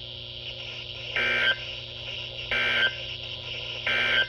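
Weather radio giving three short, equal beeps about a second and a half apart, over the steady hiss and hum of the received broadcast, during a pause in a severe thunderstorm warning message.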